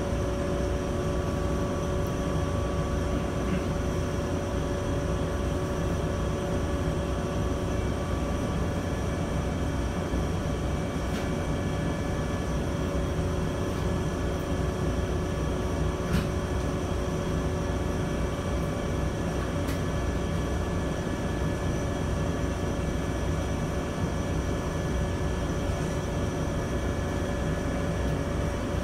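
Cabin sound of a JR West 123 series electric railcar standing still: its onboard equipment hums steadily with several held tones, and there are a couple of faint clicks.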